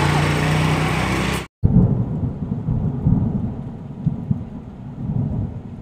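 A motor scooter's engine idling steadily, cut off abruptly about a second and a half in. A loud rumble of thunder with sharp cracks follows and slowly dies away.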